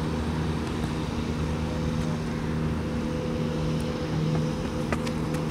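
An engine runs steadily at an even pitch throughout, with a few faint clicks near the end.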